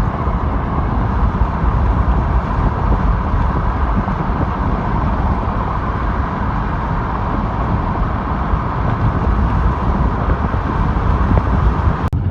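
Steady road and engine noise from inside a moving car, a constant low rumble with no change in pace. A sharp click comes just before the end.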